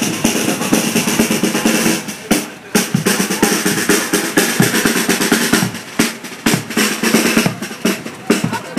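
Marching drums, a large bass drum and a smaller side drum, beaten with a quick run of repeated strikes.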